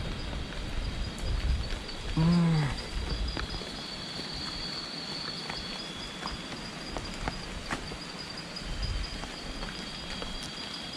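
Night ambience on a forested mountain: insects chirring in one steady high tone, with scattered faint ticks and knocks and a low rumble underneath. About two seconds in there is a brief low, falling hum from a person's voice.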